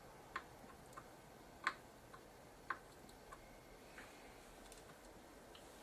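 Faint, irregular small ticks, about seven of them with the loudest near two seconds in, from soldering-iron work on a circuit board as fresh solder is added to capacitor joints before they are desoldered.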